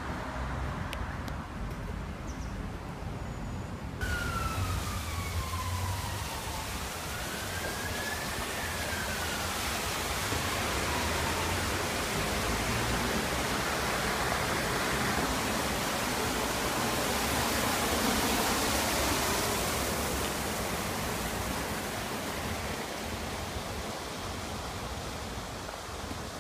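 Rushing, churning water pouring into the canal, growing louder to a peak about two-thirds of the way through and then easing off. A few seconds in, a distant siren wails down, up and down again.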